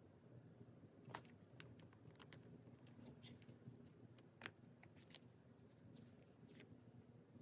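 Hands handling packing materials: faint, irregularly spaced crisp clicks and snips over a low, steady background hum.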